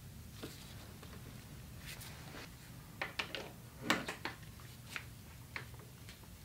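Faint clicks and knocks of a bar-end mirror being fitted and adjusted on a motorcycle handlebar by gloved hands. A quick cluster of taps comes about three to four seconds in, over a low steady hum.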